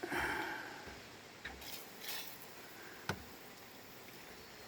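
WD-40 being applied to a crazed boat windshield: a brief rushing hiss about a second long, followed by a few light clicks and taps.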